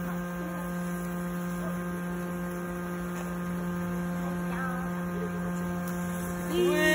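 A steady electrical hum made of several constant tones, with a faint voice briefly about four and a half seconds in. A loud voice starts near the end.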